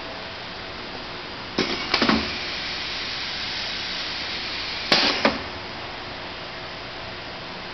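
Steady running noise of a Royal Master grinder, broken by two brief clusters of sharp knocks about three seconds apart, the noise a little louder between them.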